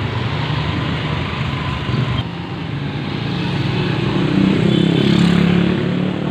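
Street traffic with a motorcycle engine passing close by, growing louder to a peak about five seconds in and dropping a little in pitch as it goes past, over the steady noise of other vehicles.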